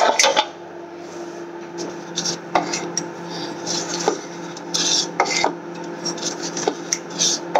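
Metal spoon scraping and clinking against a mixing bowl while working cake batter, with several separate sharp clinks, over a steady low hum.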